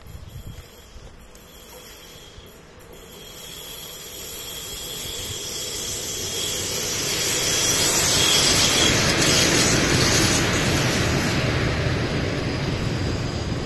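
Freight train hauled by an electric locomotive approaching and passing close by. A rising rush of wheels on rail peaks as the locomotive goes by about eight seconds in, then the steady rumble of loaded car-carrier and tank wagons rolling past.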